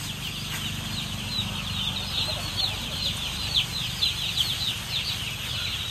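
A large flock of young chicks peeping all together, a dense stream of short, high, falling cheeps overlapping without pause, over a low steady hum.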